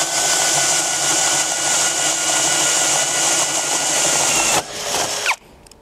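HPT 20V cordless hammer drill in drilling mode at low-speed first gear, boring a 35 mm spade bit into a thick timber beam: a steady motor whine whose pitch drops slightly under load, over the hiss of chips being cut. It stops abruptly a little over four and a half seconds in.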